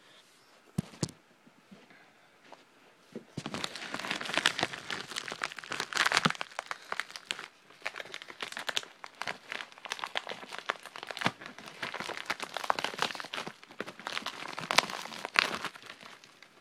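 A mailing envelope being torn open and its contents rummaged by hand: dense crinkling and tearing with many sharp crackles, starting about three and a half seconds in after a few faint clicks.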